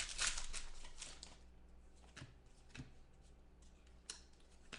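Football trading cards being handled and slid against one another: a run of quick rustling flicks in the first second or so, then a few single clicks.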